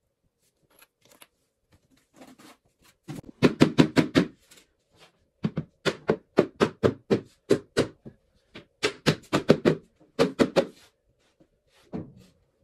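Sharp knocks in quick runs of several strikes, roughly three to five a second, with short pauses between the runs.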